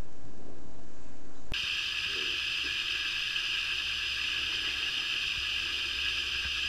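Steady background hiss with no other clear sound. About a second and a half in it changes abruptly from a duller, louder noise to a quieter, high thin hiss.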